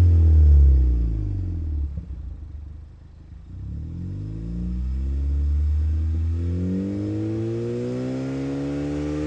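Ford Focus ST with a cat-back exhaust being revved, heard from outside: the revs fall away to a low about three seconds in, then climb again from about four seconds and hold high.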